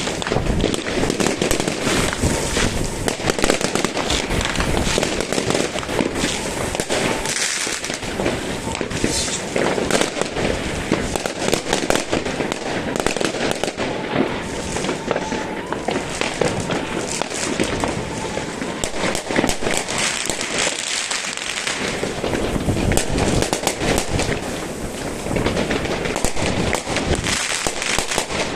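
Many fireworks and firecrackers going off at once: a dense, unbroken crackle of bangs and pops.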